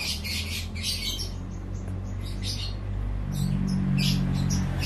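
Small birds chirping in short, repeated calls over a steady low hum that grows louder about three seconds in.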